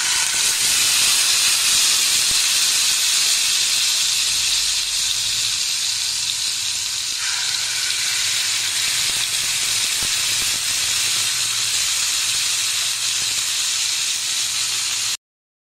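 Marinated paneer pieces sizzling in hot oil in a frying pan, a loud, steady hiss of shallow frying. It starts suddenly as the first piece goes into the oil and cuts off abruptly near the end.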